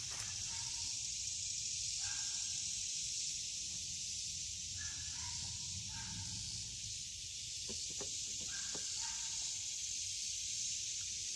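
Steady, high-pitched drone of insects in the woods, with a few short chirps over it.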